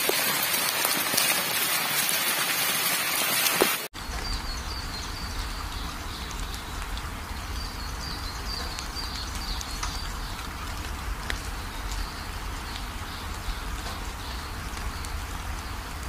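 Rushing water of a rocky waterfall and stream: loud, close splashing white water for about the first four seconds, then after a sudden cut a softer, steady flow with a low rumble underneath and short high chirps in the background.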